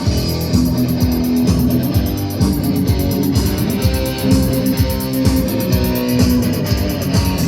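Rock band playing an instrumental passage: electric guitar with bass over a steady beat, no singing.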